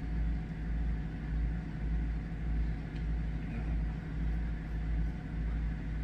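Work Sharp Knife and Tool Sharpener's electric belt motor running steadily with no blade on the P80 belt: a continuous low hum and rumble.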